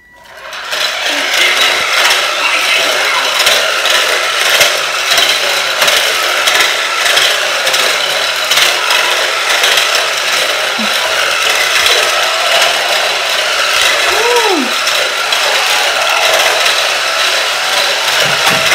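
Remote-controlled Lightning McQueen toy cars' small electric motors and gears whirring steadily as they drive across a tile floor.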